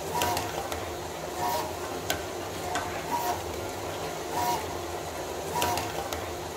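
Wrap-around labeling machine running: a steady mechanical hum from the conveyor and wrap belt, with a short two-note whine about every second and a half as each label is fed onto a bottle, and a sharp click now and then.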